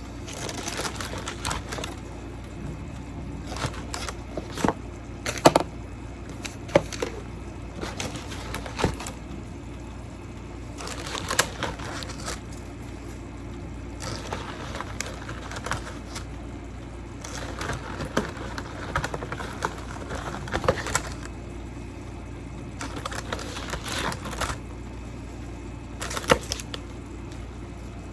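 Irregular clicks, taps and knocks of kitchen items being handled while food is prepared, over a steady low hum.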